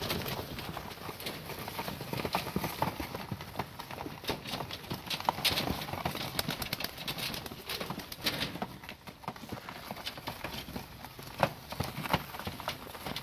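Berlin long-faced tumbler pigeons jostling and flapping in a loft, with irregular wing claps and taps.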